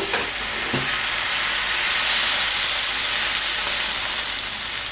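Water poured from a measuring jug into a hot stainless steel pan of fried pork ribs and sauce, giving a steady hiss that swells a little midway and eases toward the end.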